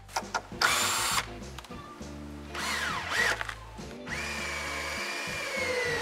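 Cordless drill-driver driving screws into wooden framing: the motor whines in short runs, with the longest run starting about four seconds in and falling in pitch as it slows near the end.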